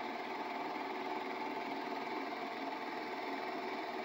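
A small motor running with a steady, even hum.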